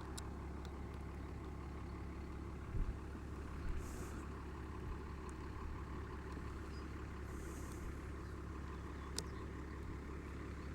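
A steady low hum with light background noise, broken by a few faint clicks.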